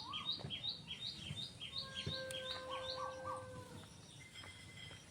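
A small bird repeating a short high chirp about three times a second, stopping a little after three seconds in, with a faint steady tone underneath in the middle of the stretch.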